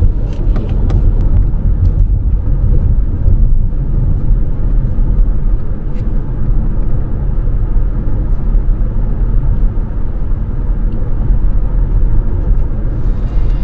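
Car driving along the road: a steady low rumble of road and engine noise, heard from inside the cabin.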